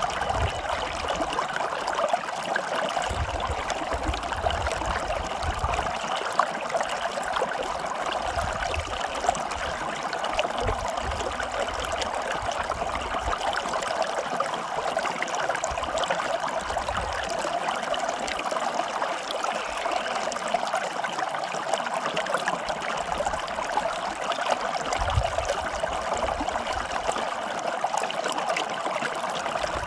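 Stream of water flowing and trickling steadily, with a low rumble that comes and goes.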